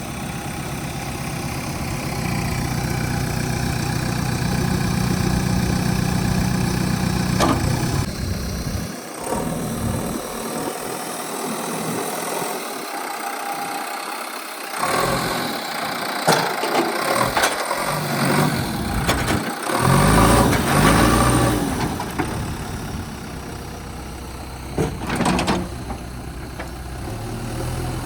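JCB 3DX backhoe loader's four-cylinder diesel engine running. It gets louder over the first several seconds, then its low rumble thins in the middle amid bursts of louder running and a few sharp knocks. It settles back to a steady idle near the end.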